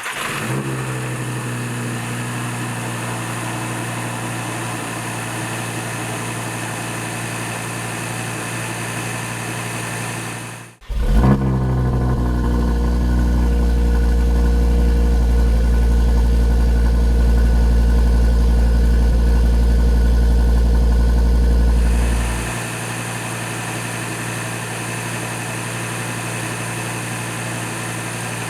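A 2013 Audi TT RS's turbocharged five-cylinder engine idling with its intake manifold flaps reinstalled, the fix for its cold-start misfires. About eleven seconds in the sound cuts out briefly and the engine comes back louder with a deep drone. About twenty-two seconds in it settles back to the lighter, even idle.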